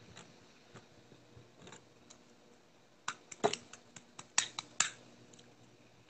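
A quick run of sharp clicks and taps close to the microphone, about eight within two seconds, starting about three seconds in.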